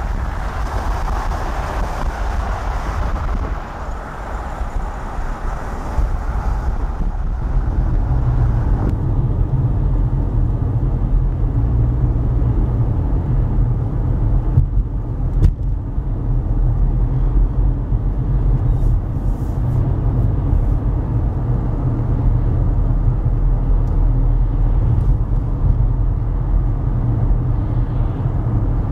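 Wind buffeting the microphone for the first several seconds, then the steady low rumble of road and engine noise inside a moving car.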